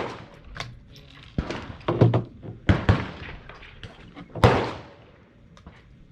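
Gunshots on a shooting range: about six sharp, irregularly spaced reports, each ringing out briefly, with the loudest about four and a half seconds in.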